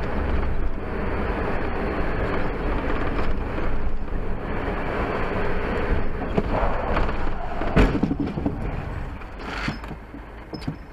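Steady road and engine noise of a vehicle in motion, with a sudden loud knock nearly eight seconds in and a weaker one near ten seconds, after which the noise eases off.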